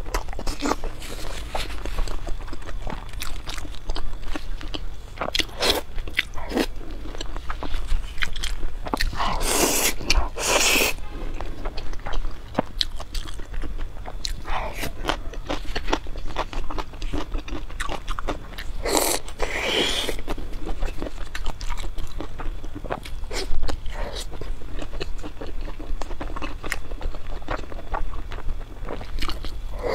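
A person eating close to a clip-on microphone: chewing and biting, with many small clicks and a few longer, louder bursts about ten and twenty seconds in.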